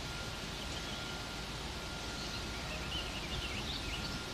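Steady outdoor breeze noise, with faint high bird chirps scattered through it.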